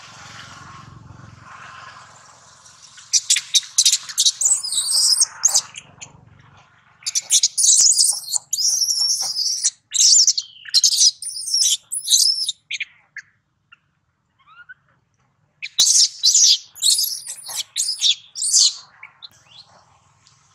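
Newborn long-tailed macaque screaming: shrill, wavering squeals that come in three long bouts, each broken into rapid cries, the distress cries of an infant monkey.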